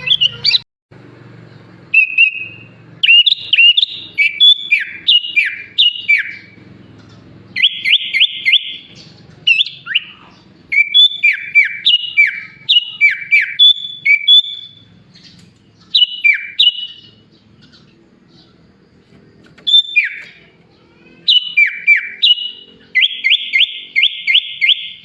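Sooty-headed bulbul (kutilang) singing in loud bursts of clear whistled phrases, many notes sliding sharply downward. Twice, about eight seconds in and near the end, the phrases give way to a fast run of rapid repeated notes. The song carries mimicked phrases of other birds, including bar-winged prinia, greater green leafbird and pied myna.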